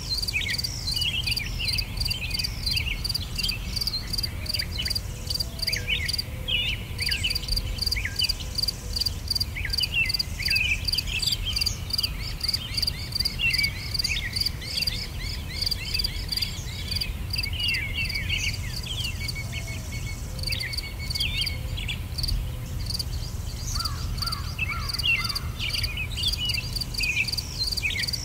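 Crickets chirping in a steady, evenly pulsed rhythm, with many short, quick bird chirps over them and a low steady rumble underneath.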